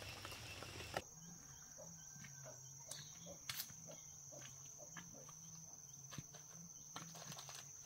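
Faint, steady high-pitched insect trill that starts about a second in, with scattered light clicks and taps.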